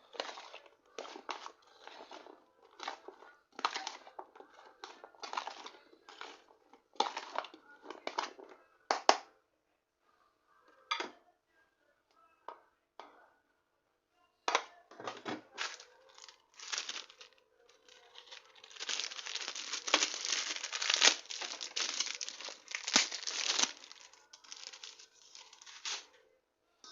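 Crinkling and rustling of handled packaging in irregular bursts, heaviest for several seconds past the middle, over a faint steady hum.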